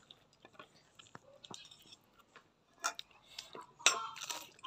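Close-up eating sounds: scattered soft mouth clicks and smacks, with a few sharper clicks from about three seconds in as a bite of food is taken.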